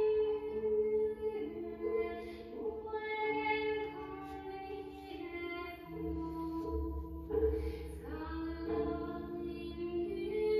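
Vocal music, sung notes held long over an accompaniment, with a deep bass note in the middle, played through a DeVry Type D vacuum-tube amplifier.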